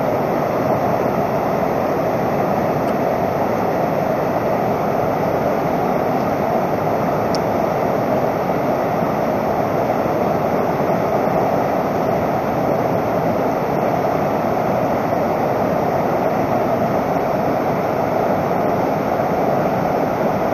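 Rapids of a fast river rushing over rocks: a steady, even rush of whitewater with no break.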